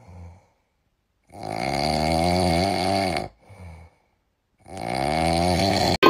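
Comic snoring sound effect: two long, wavering snores, each with a short puff of breath beside it.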